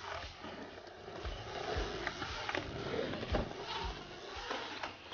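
BMX bike riding on a wooden skatepark ramp: tyres rolling with a steady rushing noise, and several irregular knocks and thumps.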